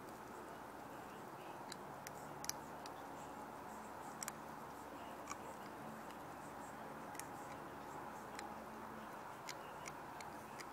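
Puppy chewing a raw chicken wing: sharp crunches of bone at irregular intervals about a second apart, over a faint steady hiss.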